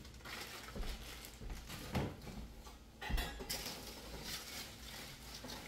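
Kitchen handling sounds: a few separate knocks and clinks of pots and utensils, the loudest about three seconds in and followed by a brief rustle, while a plastic bag of frozen corn on the cob is handled.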